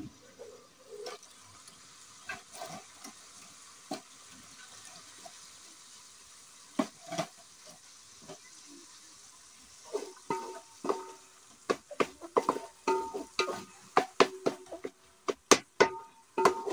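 A few scattered knocks of firewood being handled at the stove. From about ten seconds in, a spoon stirs and knocks repeatedly against a metal cooking pot, and the pot rings with each strike.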